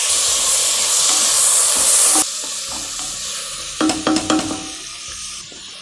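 Chopped tomatoes sizzling in hot oil in a frying pan, loud at first and dropping to a softer sizzle about two seconds in. A wooden spoon then stirs them, knocking a few times against the pan.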